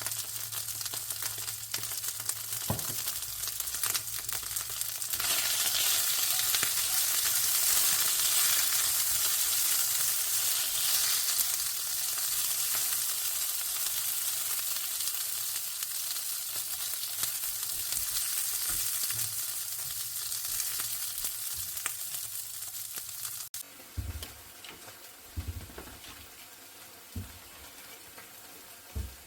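Food sizzling in a hot frying pan, swelling louder a few seconds in. The sizzle cuts off abruptly about three-quarters of the way through, leaving a few soft knocks.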